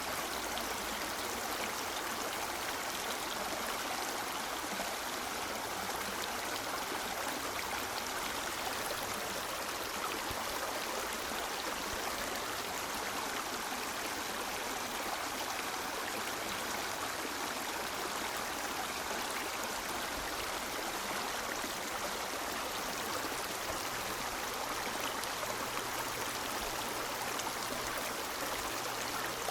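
River water flowing over rocks, a steady rushing and babbling with no breaks.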